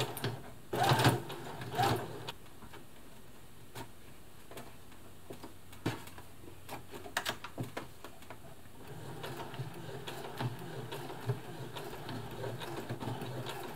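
Knocks and clicks of the denim and presser-foot tool being handled, then scattered single clicks, and from about nine seconds in the Brother FS60X computerised sewing machine running as it sews through a thick multi-layer denim jeans hem. The needle briefly hesitates as it punches through the fabric, which the owner takes for the electronics detecting the load and giving the motor more power.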